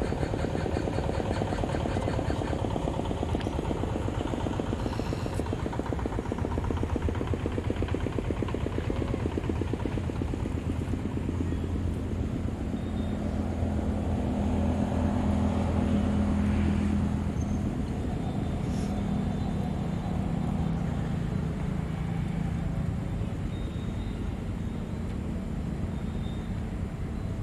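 A motor engine running steadily, growing louder from about a quarter of the way in, loudest a little past halfway, then easing off.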